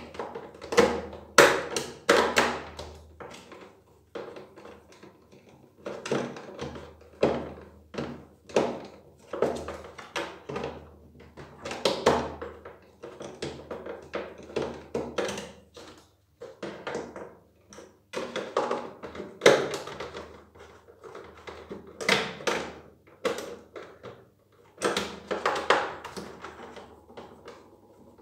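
Irregular plastic knocks, taps and clicks from handling the black plastic body and parts of a Nilfisk E 140.3 pressure washer while it is taken apart by hand.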